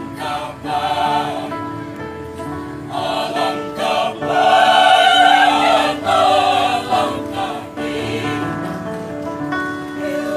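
Mixed choir of men's and women's voices singing held chords, swelling louder about halfway through and then easing back.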